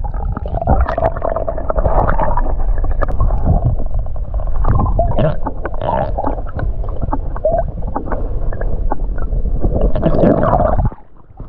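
River water heard through a camera microphone held underwater: a muffled, low gurgling and bubbling with scattered knocks. It cuts off abruptly near the end.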